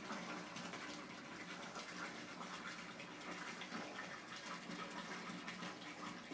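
Bathtub filling from the tap: water running steadily into the tub.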